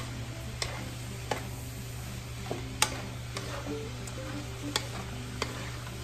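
Shrimp and shredded cabbage sizzling in a hot wok as they are stir-fried with a wooden spatula, which knocks and scrapes against the pan several times, most sharply about three seconds in.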